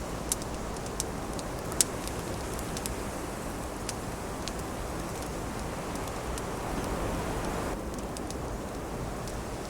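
Wood fire crackling, with scattered sharp pops, over a steady rush of wind that swells briefly about two-thirds of the way through.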